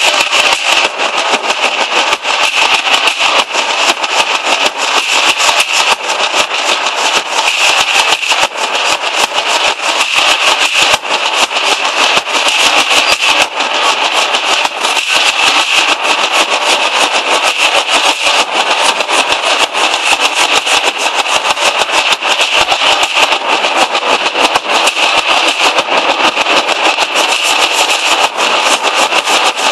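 Nashik dhol troupe drumming: many large steel-shelled dhols beaten together in a fast, dense, unbroken rhythm, loud throughout.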